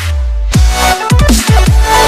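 Electronic background music with heavy bass: deep hits that drop sharply in pitch, coming in a quick run in the second half.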